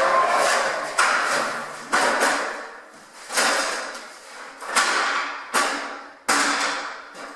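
Irregular metallic knocks and clanks, about six in all, each ringing briefly before fading: metal parts of a ceiling fan's housing being handled and bumped during disassembly.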